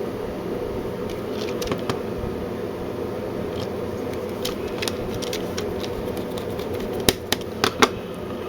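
Small sharp clicks and taps of plastic controller parts and screws being handled while a new analog thumbstick module is fitted into a Nintendo 64 controller, the loudest cluster near the end, over a steady background hum.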